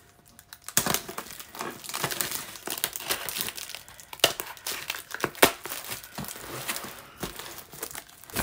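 Packing tape and plastic wrapping on a cardboard parcel crinkling and tearing as it is pulled open by hand. It starts about a second in, with a continuous crackle and sharp snaps.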